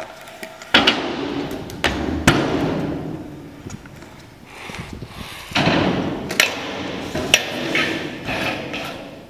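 Stunt scooter wheels rolling over concrete in two stretches, broken by several sharp clacks of the deck and wheels striking the ground.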